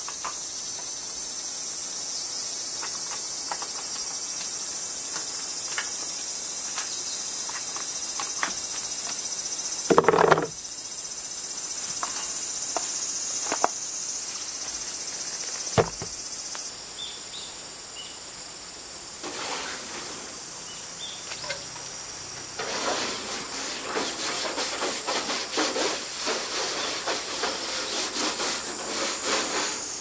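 Steady high-pitched chorus of cicadas throughout, with a few metal clanks while the rusted wheelbarrow is taken apart. From about two-thirds of the way in, rapid repeated scraping strokes start as the rusted wheelbarrow tray is worked on.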